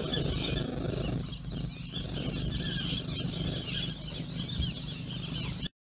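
Many birds calling at once, a dense run of short high chirps and calls over a low steady rumble; the sound cuts off suddenly near the end.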